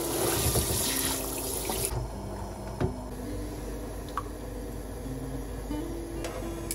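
Water boiling hard in a wok: a loud bubbling hiss for about the first two seconds that then drops away. A single sharp click comes about three seconds in, over light background music.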